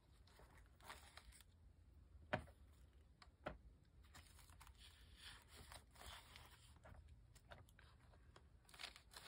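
Faint rustling and crinkling of paper as the pages of a handmade paper journal are handled and smoothed down, with two sharp knocks about two and three and a half seconds in.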